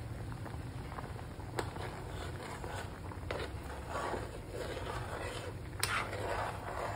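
A spoon stirring a pot of boiling soybean stew, scraping and knocking against the metal pot a few times over a steady low hum.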